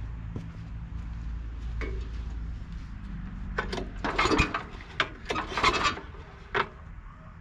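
Gilson snowblower's Tecumseh engine running with a low, steady hum that dies away about two and a half seconds in. It is followed by a run of rubbing, scraping and clinking noises between four and six seconds in.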